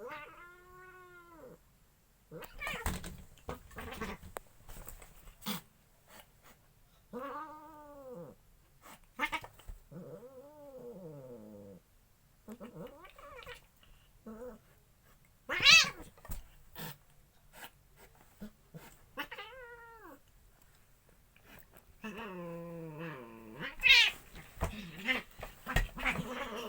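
Domestic village cats in a fight, caterwauling: long drawn-out yowls that rise and fall, broken by sudden loud hisses and spits. The yowling thickens into a tangle of overlapping wails near the end.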